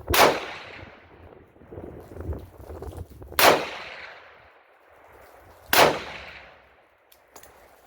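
Egyptian Hakim semi-automatic rifle firing three shots of 8mm Mauser a few seconds apart, each sharp report followed by a fading echo. A few faint clicks near the end.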